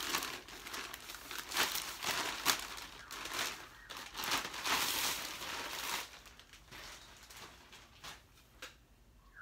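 Thin plastic sleeve crinkling and rustling as it is pulled off a rifle, a dense crackle that dies down about six seconds in. A few faint knocks follow.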